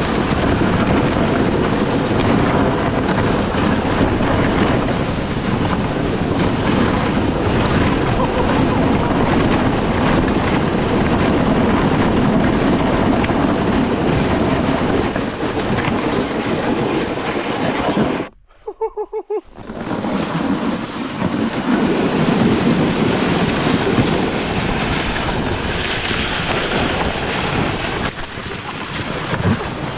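Plastic sled sliding fast over packed snow, a steady rushing scrape with wind buffeting the microphone. It cuts out for about a second roughly two-thirds of the way through, then carries on and eases off near the end.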